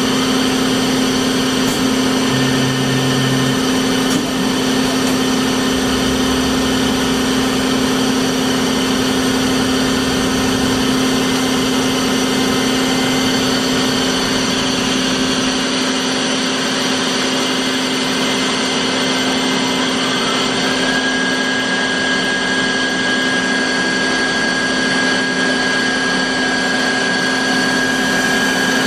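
Bridgeport FGC 1000 vertical blade grinder running steadily with a constant machine hum; a thin, high steady whine joins about two-thirds of the way in.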